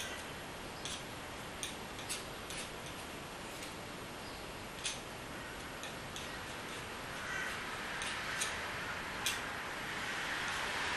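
Scattered light clicks and taps, irregularly spaced, over a steady hiss of room noise.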